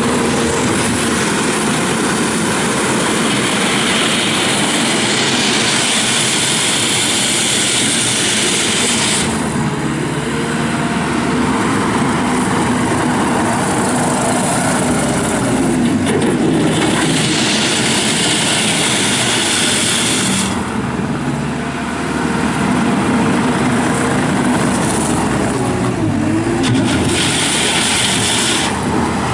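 A JCB 260T tracked skid steer's diesel engine running under operation, its pitch dipping and rising at times. A high hissing noise comes and goes three times over it.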